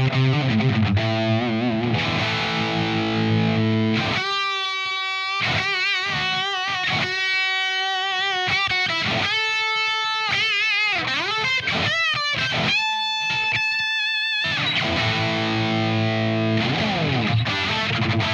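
Electric guitar played through a Friedman JEL-100 tube amp head, with a distorted tone. It opens with heavy low rhythm chords. From about four seconds in it plays a lead line of single sustained notes with wide vibrato and a swooping pitch dive and rise, then returns to heavy rhythm chords near the end.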